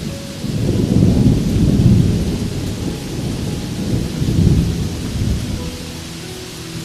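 Rolling thunder over steady rain: a low rumble swells about half a second in, peaks twice, and dies away near the end, with the rain hiss running underneath.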